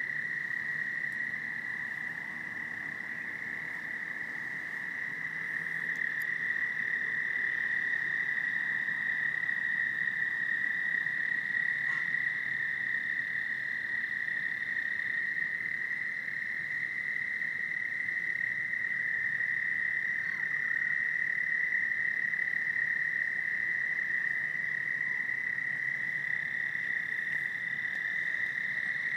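A loud chorus of many toads trilling together, their calls blending into one continuous high, steady drone that never breaks, growing slightly louder a few seconds in.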